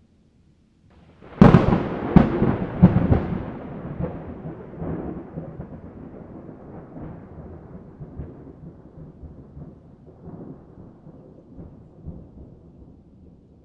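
A thunderclap: a sudden sharp crack about a second and a half in, a few more cracks over the next two seconds, then a long rolling rumble that slowly fades.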